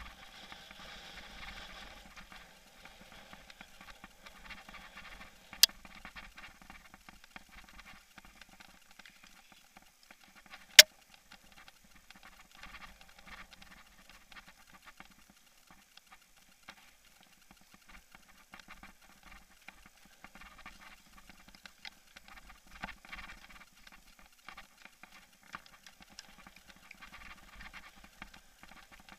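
Rattling and ticking of an action camera in its mount on a moving mountain bike, jolted by the dirt trail. Two sharp knocks stand out, about six and eleven seconds in.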